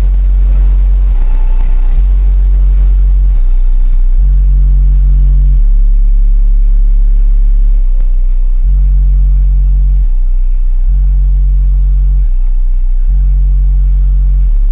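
Four 18-inch Tantric HDD car subwoofers playing a very loud, deep bass line, stepping back and forth between two low notes every second or so.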